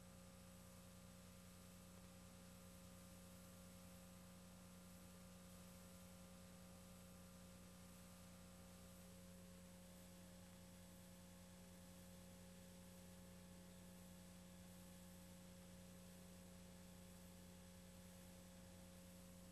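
Near silence: a faint steady hum with light hiss, the noise floor of a VHS tape's playback.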